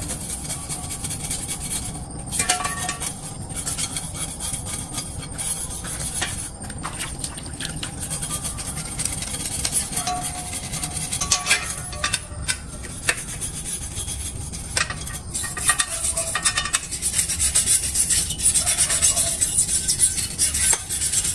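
Hand brush scrubbing a wet bicycle frame in rapid back-and-forth strokes, a continuous scratchy rasp.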